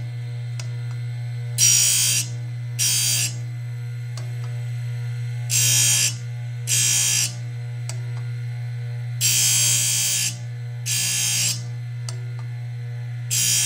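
Foley 310 carbide saw-blade sharpener's Marathon electric motor running with a steady, smooth hum. The diamond wheel touches off on the carbide teeth of a circular saw blade in short, high grinding sounds about half a second each, coming in pairs every three to four seconds, seven in all, as tooth after tooth is ground.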